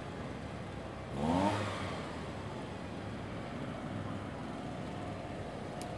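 Steady hum of road traffic, with one vehicle's engine briefly revving up, a short rising whine, about a second in.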